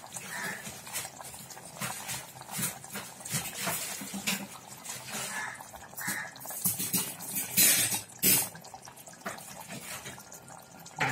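Thick mutton curry bubbling in an uncovered clay pot on the stove, with irregular small pops and plops. Two louder brief noises come about two-thirds of the way through.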